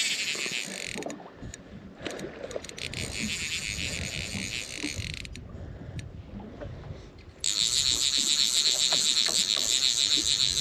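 Fly reel's click-pawl drag buzzing in fast clicks as the spool spins with a hooked trout on the line. It comes in three runs: a short one that stops about a second in, a weaker one from about two to five seconds, and a loud one from about seven and a half seconds to near the end.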